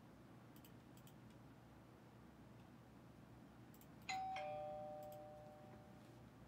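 A two-note ding-dong chime about four seconds in, a higher note then a lower one, both dying away over about two seconds. A few faint clicks come before it.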